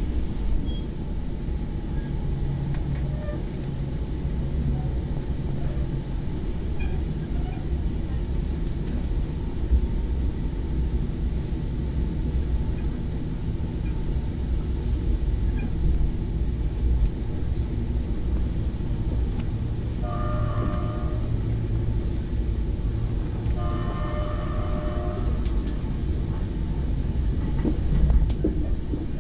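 Commuter train's bilevel Gallery IV trailer car running along the line, heard from inside, with a steady low rumble of wheels on rail. About two-thirds of the way in, a train horn sounds twice, a short blast and then a longer one.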